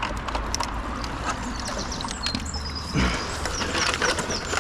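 Small birds chirping and twittering over steady outdoor background noise, with scattered light clicks and knocks.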